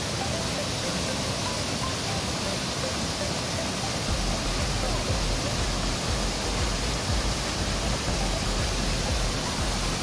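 Multi-tiered mountain waterfall rushing steadily, an even, loud hiss of falling water. About four seconds in, a low rumble joins it.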